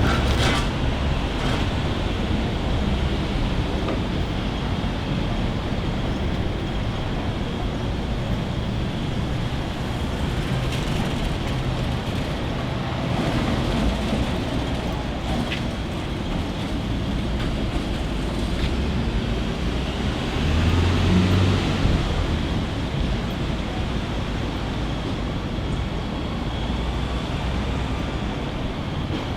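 Steady room ambience of a small neighbourhood hair salon, with road traffic from the street outside. A louder low rumble from a passing vehicle swells about two-thirds of the way through.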